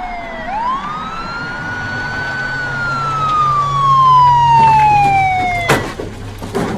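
Police car siren wailing: the tone swoops up, holds high, then slides slowly down, and cuts off suddenly with a sharp knock near the end.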